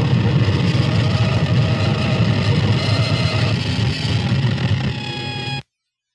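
Harsh noise music: a loud, dense wall of rumbling noise, heaviest in the low end. Near the end a steady ringing tone comes in, then the track cuts off abruptly into silence.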